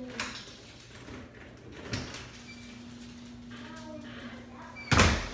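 A door knocking shut with one loud, sharp bang near the end, after a smaller knock about two seconds in and faint household sounds.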